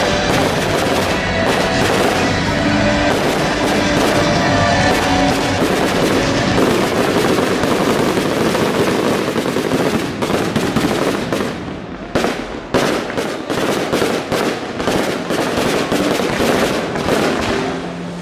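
Fireworks display going off in a dense barrage of bangs and crackles, with music playing underneath. From about ten seconds in, the barrage thins into separate sharp cracks.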